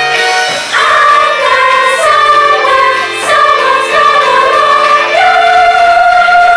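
Stage musical cast singing a chorus number together with instrumental accompaniment; the voices move through a melodic line, then settle on one long held note about five seconds in.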